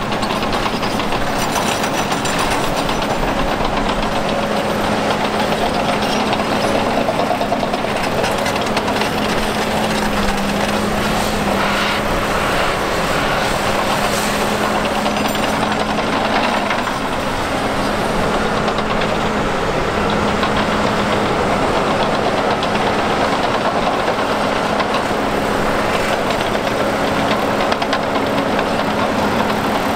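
Heavy diesel earthmoving machinery running at a worksite, a large excavator working as it loads articulated dump trucks, with a constant engine hum throughout.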